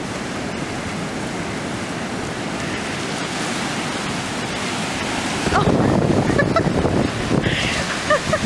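Ocean surf washing up the beach, with wind buffeting the microphone. The rush of water grows louder about five and a half seconds in.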